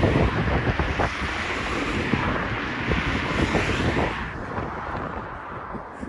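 Wind buffeting the microphone: a gusty, rumbling rush that eases off in the last second or two.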